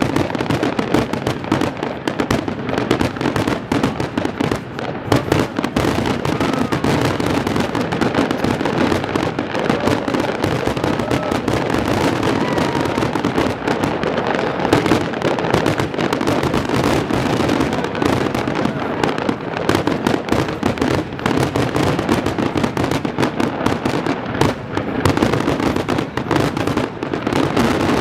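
Fireworks display: a dense, unbroken barrage of bangs and crackles with no pauses.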